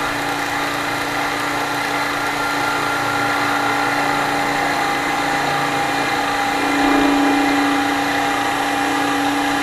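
Milling machine spindle running steadily as an end mill cuts a relief around the pivot of a folding-knife liner on a rotary table: a steady machine whine over a hiss of cutting, briefly a little louder about seven seconds in.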